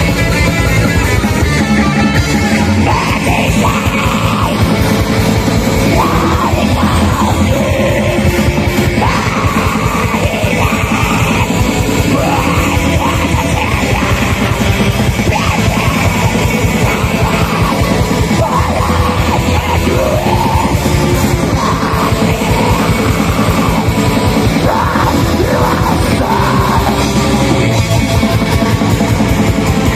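Live metal band playing a fast song: dense drumming and distorted guitars, with vocals coming in about three seconds in.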